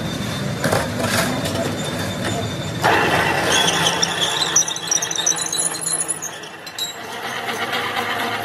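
A couple of metal knocks as castings are handled, then about three seconds in a drill press starts boring into a cast truck-suspension trunnion saddle seat with a large twist drill. The bit squeals high for a few seconds as it cuts, then settles into a steadier cutting noise.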